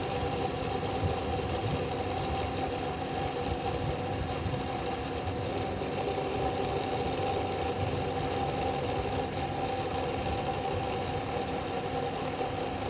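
Compact John Deere tractor's engine running steadily while a loader-mounted Limbsaw hydraulic chainsaw, driven by the tractor's hydraulics, saws through a large tree limb. A steady pitched hum over a low rumble, with no change in pitch.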